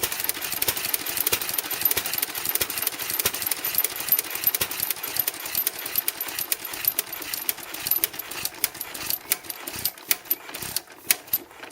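Vintage Amanco stationary engine with battery-and-coil ignition running with a fast, even mechanical clatter, starved of fuel after the tank tap is shut. Its beat thins into separate knocks and the sound drops away toward the end as it runs down.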